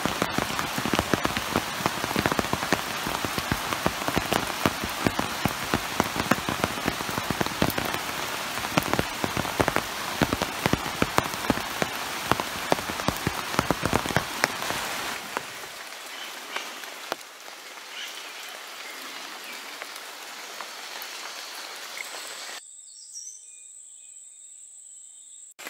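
Rain pattering on jungle foliage, a steady hiss full of individual drop ticks, heavy for about the first fifteen seconds and then lighter. Near the end a steady high-pitched whine takes over.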